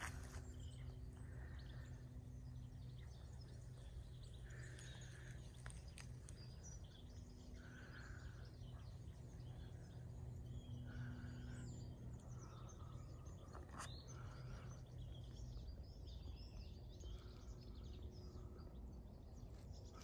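Quiet outdoor ambience with faint bird calls and chirps every few seconds, over a steady low hum.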